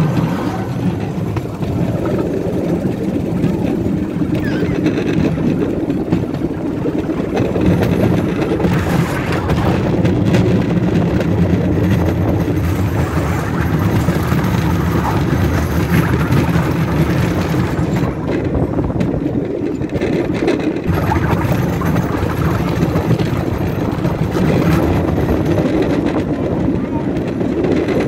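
Bamboo train (norry) running along the rails: its small motor runs steadily under the continuous rattle of the wheels and platform on the track.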